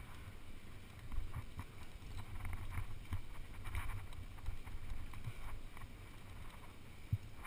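Wind rumbling on a body-worn action camera's microphone, with faint scattered scuffs and taps of hands and gear on rock, and one sharper tap near the end.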